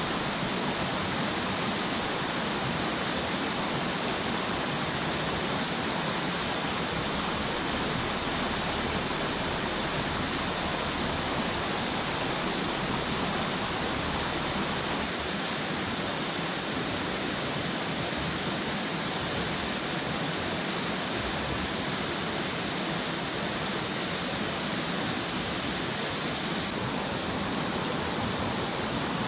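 A small rocky stream running with a steady, even rush of water.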